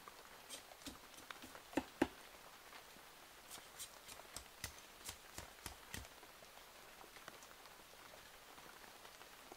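A blade knocking against a bamboo stick as it is cut and shaped: two heavier knocks about two seconds in, then a run of sharp light taps, roughly two a second, for a couple of seconds before it goes quiet.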